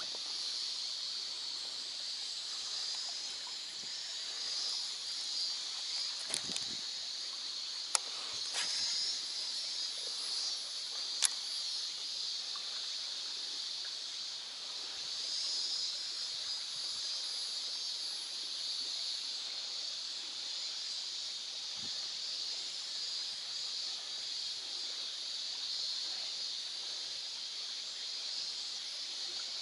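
Small ripples of lake water lapping against the tube of an inflatable packraft, over a steady high hiss, with a few sharp clicks between about six and eleven seconds in, the loudest about eleven seconds in.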